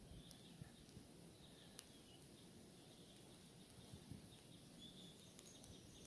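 Near silence, with a few faint, short calls from a flock of pine grosbeaks feeding in the trees, and one sharp click about two seconds in.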